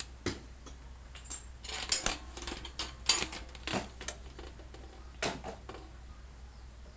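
Irregular light knocks and clinks of hard objects being handled at close range, with the loudest knocks about two and three seconds in, over a faint low hum.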